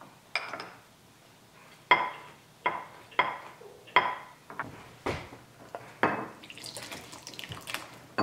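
A table knife tapping and scraping against ceramic plates and a glass butter dish while butter is spread on bread slices: about seven sharp, ringing clinks. Near the end, soup splashing as it is poured from a saucepan into a bowl.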